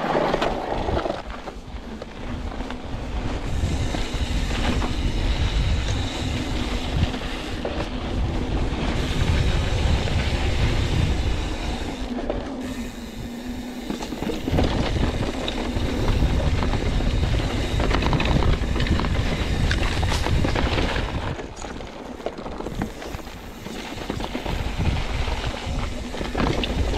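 YT Capra Elite mountain bike rolling down a dirt trail: tyres crunching over dirt and rocks, chain and frame rattling with many small clicks and knocks, and wind rumbling on the microphone. The noise swells and eases in waves.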